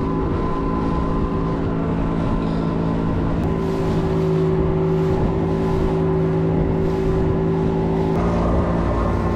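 A small boat's two-stroke outboard motor running steadily with an even engine hum. Its tone shifts slightly about three and a half seconds in and changes abruptly about eight seconds in.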